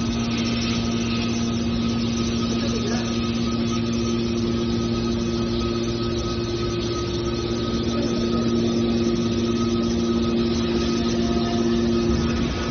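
Hydraulic scrap metal baler running: its power unit gives a steady machine hum with a few held pitches.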